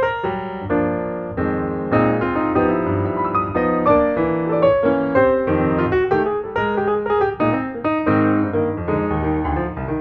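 Piano music, a lively run of many quick notes and chords.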